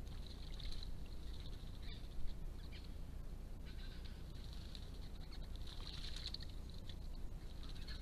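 Faint bird calls and light splashing of red wattlebirds bathing in a shallow pond, with a single sharper splash or knock a little after two seconds, over a steady low hiss.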